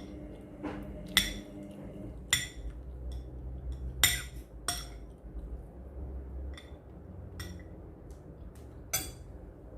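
Eating utensils clinking against dishes: about a dozen irregular sharp clinks, each with a short ring, the loudest about four seconds in.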